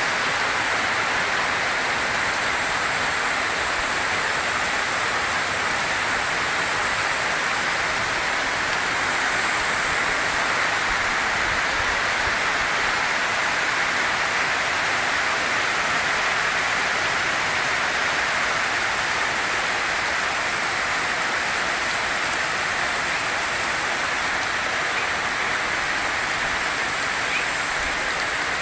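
Heavy rain falling steadily: a dense, even hiss with no letup.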